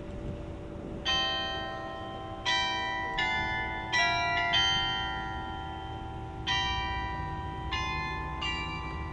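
Tower bells played as a slow tune: single tuned bell strokes at an uneven pace, each ringing on and overlapping the next.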